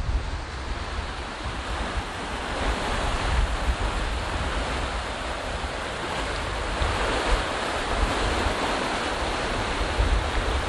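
Fast water rushing and churning in a canal below a concrete wall, a steady hiss that grows louder about two to three seconds in. Wind buffets the microphone throughout.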